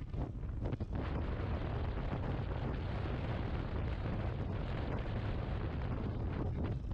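Wind rushing and buffeting over the microphone of a Yamaha XMAX 250 maxi-scooter at cruising speed, over a steady low drone of engine and road.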